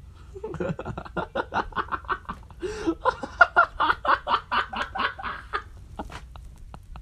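A person laughing hard and uncontrollably in quick, rhythmic bursts, about four a second, trailing off near the end.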